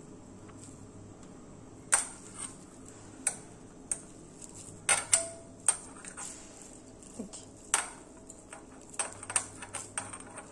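Irregular sharp clicks and light clinks of a hand and the chicken chop mixture knocking against a stainless-steel mixing bowl while the chops are scooped and shaped. About a dozen knocks begin about two seconds in, and one near the middle leaves a short metallic ring.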